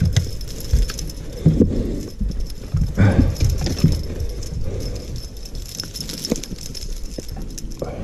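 Irregular knocks and thumps on a bass boat's deck as people move about and handle gear, with a few sharp clicks.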